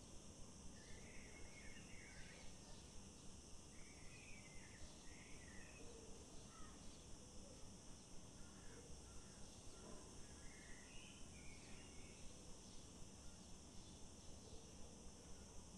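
Faint outdoor nature ambience: a steady high insect drone with a regular pulsing, and small birds chirping now and then.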